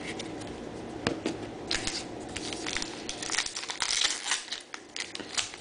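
Baseball trading cards being handled: stiff cards sliding and flicking against one another in a rustling, irregular patter, with a few sharp clicks.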